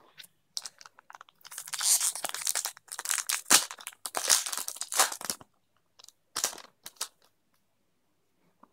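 A Pokémon trading card booster pack's foil wrapper being torn open and crinkled, a run of crackling rips for about five seconds, then two short rustles.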